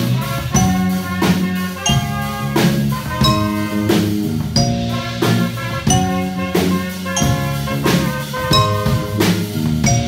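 A small student jazz band playing live: a drum kit keeps a steady beat under electric bass and held melody notes.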